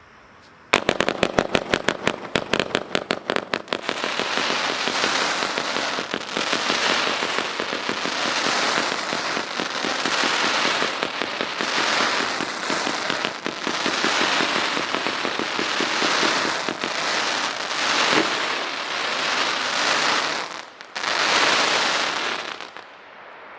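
100-shot low-noise S-shape firework cake (MFT-3) firing. It opens with a rapid string of sharp pops about a second in, then turns to a dense, continuous crackling hiss that swells and fades, breaks off briefly, and stops near the end.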